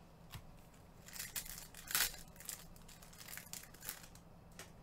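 Trading card pack wrapper crinkling and tearing as it is opened: a run of short rustles starting about a second in, loudest about two seconds in.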